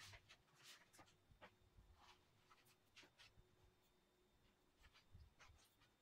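Near silence, with faint scattered ticks and soft scratches of fingers trickling and rubbing white kolam powder onto a cement floor.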